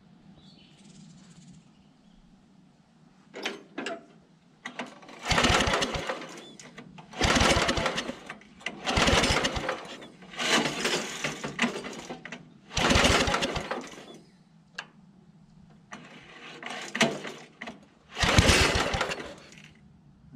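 8 hp Briggs & Stratton single-cylinder engine being pull-started by its recoil starter: about eight pulls, one every second or two, each a short burst of cranking that dies away without the engine settling into a steady run.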